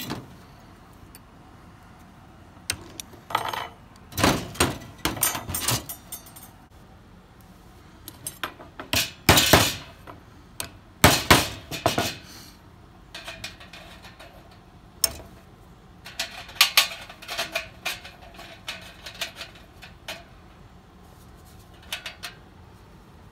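Thin sheet-metal strips and a steel tin can clinking and clanking as the strips are worked and fitted crosswise into slots in the can's rim, with light hammer taps. The clanks come in irregular clusters, loudest about halfway through.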